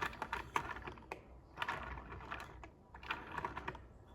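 Gears and rack-and-pinion of a toy mock-up clicking and rattling as its arms are worked back and forth, in three bursts of rapid clicks about a second apart.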